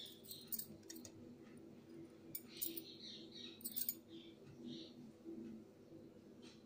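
Faint rustling of fabric being smoothed and folded by hand, with scattered light clicks and a low, faint steady hum underneath.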